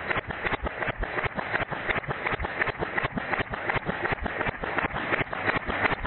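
Suppressed H&K MP5SD 9mm submachine gun firing full auto, heard slowed down with the slow-motion footage: an even string of dull shots, about seven a second.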